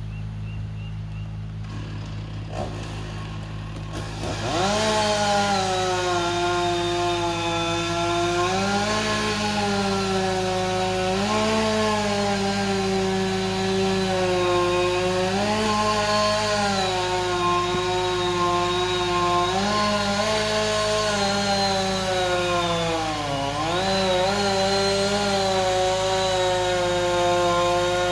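Chainsaw idling, then revved up about four seconds in and held at high speed while sectioning a dead tree, its pitch sagging and recovering as the chain bites into the wood, with one deeper dip late on.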